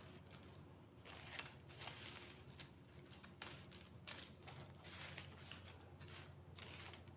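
Dried banana-leaf fibre strips rustling in short irregular bursts as they are lifted and threaded over and under each other in a weave.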